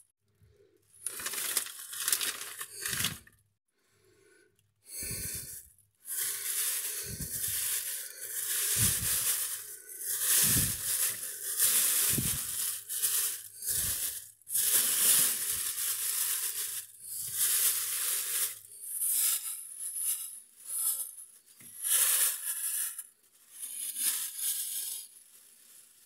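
Thin plastic food bags rustling and crinkling as a hand rummages through them, in irregular bursts with a few short dull bumps among them.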